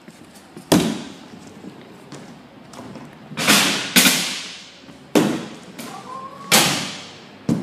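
Hard landings of wheels on skatepark ramps: about six sharp bangs, two close together in the middle, each trailing off in a fading hiss of rolling wheels.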